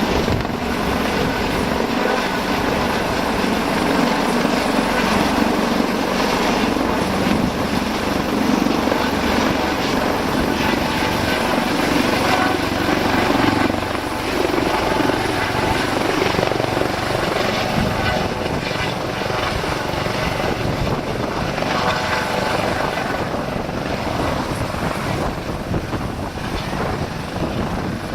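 Police helicopter running close by, its rotor and engine noise loud and steady, dipping slightly about halfway through.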